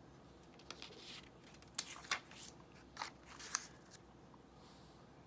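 A paper flash card handled on a wooden tabletop: a string of short, crisp rustles and light taps as one card is picked up and another laid down.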